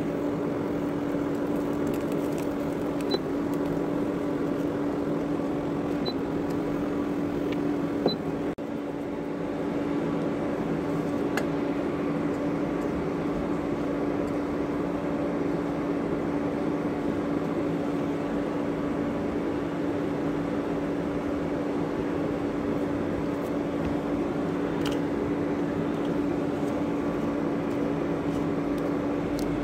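Steady mechanical hum holding one constant low tone, with a few light clicks of a wooden spatula against the pan as bread rounds roast in ghee.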